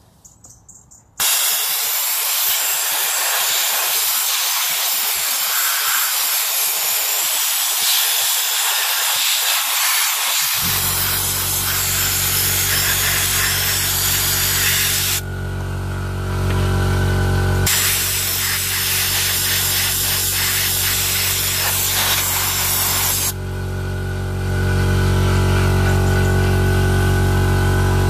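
Sandblasting gun hissing as it blasts grit at an engine crankcase, with the trigger released briefly about fifteen seconds in. About ten seconds in, the Parkside 24-litre air compressor's motor kicks on to refill the tank. Its steady hum runs under the blasting and goes on alone after the gun stops, near the end.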